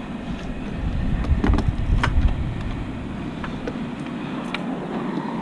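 Hand tools clinking and knocking a few times as they are gathered up, over a low, uneven rumble.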